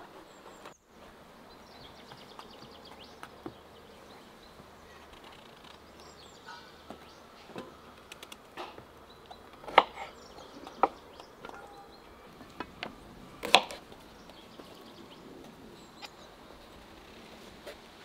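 Knives trimming eggplants against a wooden cutting board: scattered sharp chops and knocks, with a few louder ones around the middle. Faint bird chirps behind.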